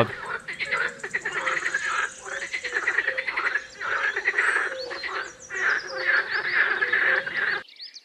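A chorus of frogs croaking, many rapid trains of croaks overlapping one another, which cuts off abruptly near the end.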